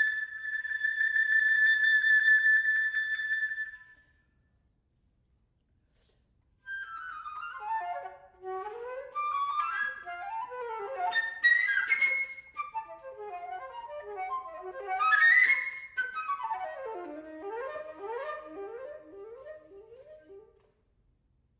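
Solo concert flute holding one long high note, then breaking off for a couple of seconds. It comes back with rapid flurries of notes cascading down and swooping up, ending in a string of quick falling runs.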